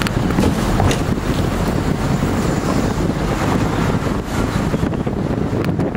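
Wind buffeting the microphone: a steady, dense rumbling noise, heaviest at the low end.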